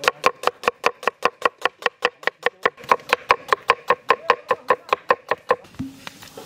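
Kitchen knife chopping red onions on a wooden board in quick, even strokes, about five a second, each stroke a sharp knock with a short ring. The chopping stops about a second before the end, followed by a single low knock.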